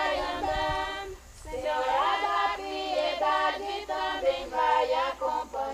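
A group of women singing an incelência de chuva unaccompanied, a penitential folk chant pleading for rain, in drawn-out phrases with a brief pause for breath a little over a second in.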